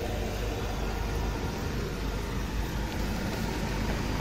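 Gas-fired medical waste incinerator running: its burner, blower fan and scrubber give a steady even noise with a low rumble underneath.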